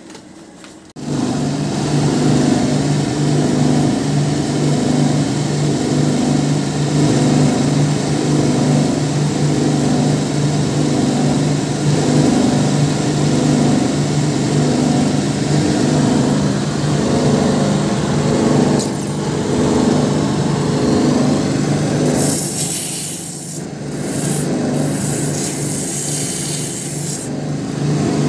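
Shoe-repair finishing machine running, its motor spinning sanding wheels on a long shaft with a steady low hum; the sound starts abruptly about a second in. From about 22 to 27 seconds in a louder hiss of rubber sole material being ground against a sanding wheel rides over the hum.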